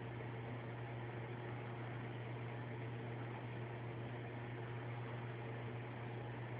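Steady low hum under an even hiss, unchanging throughout, with no distinct sounds standing out.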